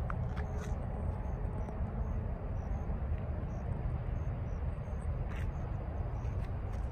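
Outdoor ambience dominated by wind rumbling on the microphone, with faint high-pitched chirps dotted through it.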